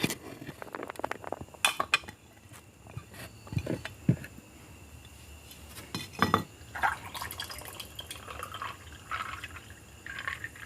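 Plates and glassware clinking as the dishes are handled, with a few sharp clinks and softer scattered knocks and rustles.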